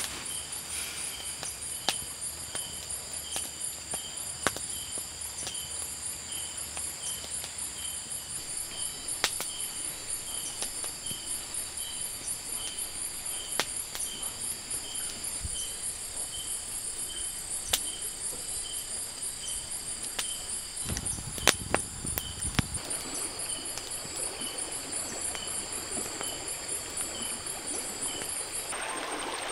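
Night insect chorus in forest: several steady high-pitched insect drones, over which one insect chirps about twice a second. Occasional sharp clicks and a brief low rumble about two-thirds through; the high drone cuts off just before the end.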